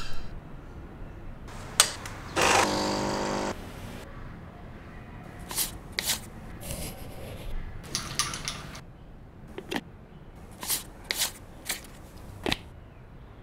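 Handling sounds of the Peleg Design Sugar House, a glass snow-globe sugar bowl: scattered sharp clicks and taps of the glass globe and its lid, with a short rush and a softer rustle of sugar sliding inside it as the lid comes off and the sugar is tipped out.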